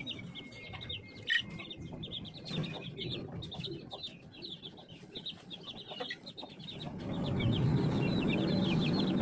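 Young chickens peeping rapidly with high, short chirps, over a few sharp taps. About seven seconds in, a steady low rushing noise rises and stays loud.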